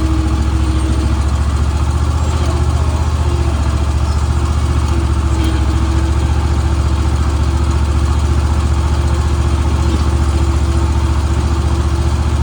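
Zero-turn riding mower's engine running steadily with a low, even drone.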